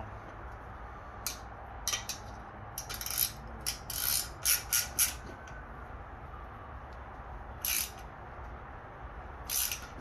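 Wrench tightening the rear axle nut that holds a kid's bike training-wheel bracket: a run of short ratcheting rasps, bunched in the first half, then two more spaced out near the end.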